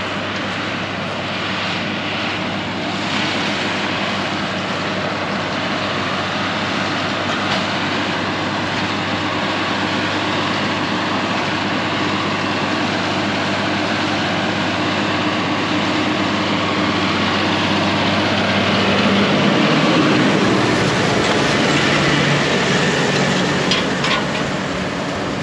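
Tractor engine running steadily. About 19 seconds in, its note changes and it grows louder.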